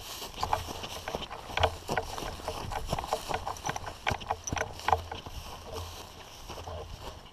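Footsteps crunching and swishing through dry grass, irregular, a few steps a second.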